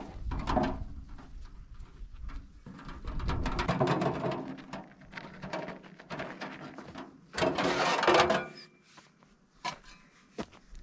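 Empty metal wheelbarrow rattling and clattering as it is pushed over bumpy ground, with a louder clatter a little past the middle. Near the end come a few sharp knocks of a steel spade chopping into dry, lumpy soil.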